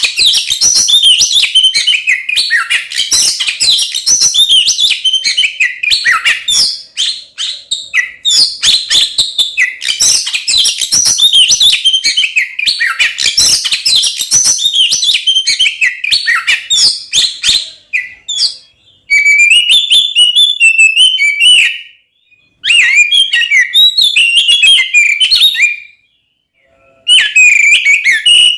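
Oriental magpie-robin (kacer) singing loud and without pause: a rapid, varied stream of whistles, chirps and harsh clicking notes, the aggressive fighting song that keepers play to provoke other kacer. The song breaks off briefly twice near the end and picks up again.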